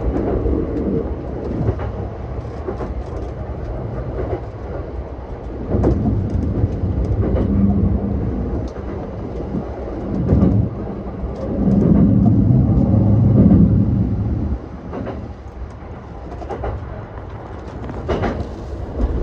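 JR East E235 series 1000 electric multiple unit running on the rails, heard from inside the leading car: a steady running rumble broken by sharp clicks of the wheels over rail joints and points, with a motor hum that swells and fades.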